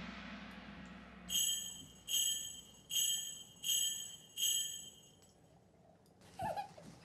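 Magic-spell sound effect: a fading shimmering whoosh, then five bright bell chimes about three-quarters of a second apart, marking the tooth fairy's magical transformation.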